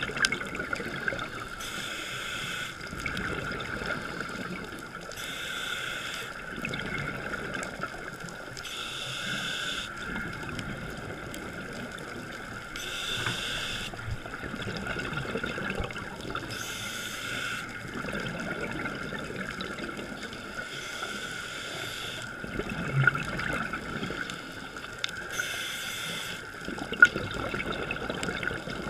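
A scuba diver breathing through a regulator, heard underwater: bursts of exhaled bubbles come every three to four seconds over a steady underwater hiss. Two sharp knocks come late on.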